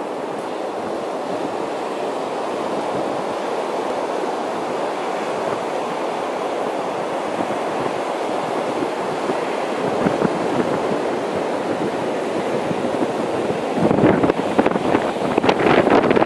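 Steady rush of North Sea surf breaking and washing up a pebbly sand beach. From about 14 seconds in, a stiff wind starts buffeting the microphone in loud, uneven gusts.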